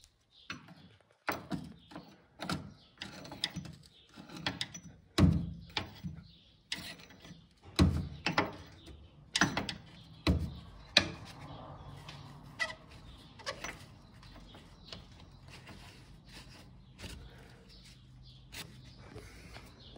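Irregular knocks and clanks of hand tools working on the pickup's rear shock absorber mountings. They are densest and loudest in the first half and grow sparser over a faint low hum after about twelve seconds.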